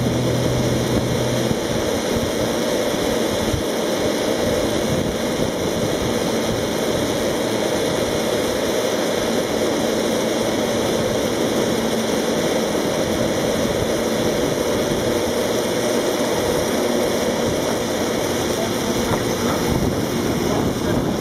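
Great Orme Tramway's cable-hauled tramcar climbing the line: a steady rushing noise that holds an even level as the car draws up and passes close.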